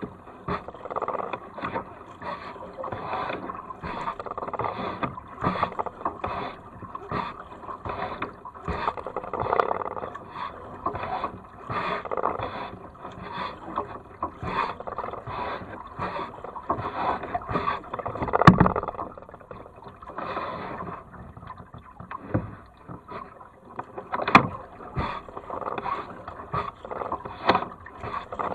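Double-bladed kayak paddle working steadily through calm water, a splash and drip at each blade entry about every two-thirds of a second as the strokes alternate side to side. Two sharper knocks stand out, the louder one about two-thirds of the way through.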